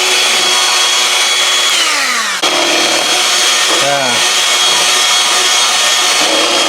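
Electric hand mixer running with a steady whine as its beaters churn rava idli batter. It slows with a falling pitch and cuts off about two seconds in, then runs steadily again straight away.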